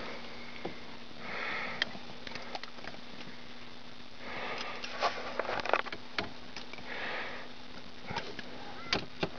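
Three breathy hisses close to the microphone, like a person breathing or sniffing through the nose, with scattered sharp clicks and taps of handling over a steady low hum.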